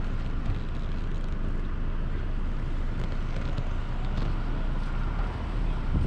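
Car driving along a road: steady low rumble of engine and tyre noise.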